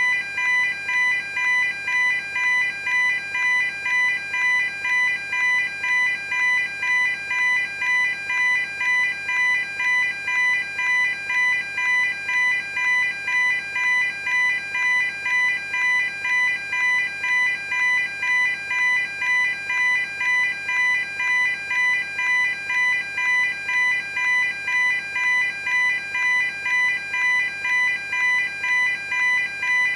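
Level crossing warning alarm: an electronic bell ringing in a steady, unchanging rhythm of about two dings a second.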